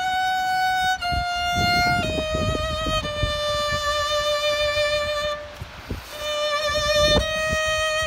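Solo violin playing a slow melody of long held notes that step down in pitch, with vibrato, and a short break a little past the middle. A few low thumps sound underneath.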